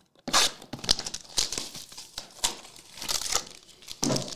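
Foil wrapper of a 2023-24 Optic Choice basketball card pack crinkling and rustling in the hands as it is pulled from the box and handled, in irregular crackles.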